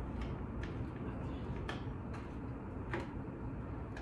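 Small, faint clicks and taps as the plastic seat shell and tilt mechanism of an office chair are handled during assembly, about six of them at irregular intervals.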